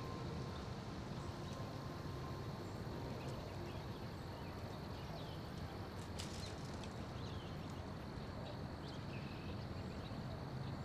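Outdoor field ambience: a steady low rumble and hiss, with faint short bird chirps here and there and a few soft clicks about six seconds in.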